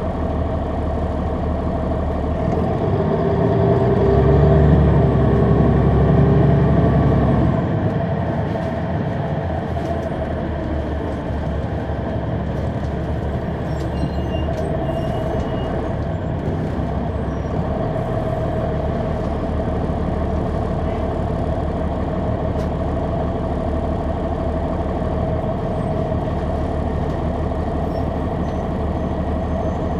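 Diesel engine of a 2003 Neoplan AN459 articulated bus, a Caterpillar C9, pulling harder and louder for a few seconds starting about three seconds in, then easing back to a steady run.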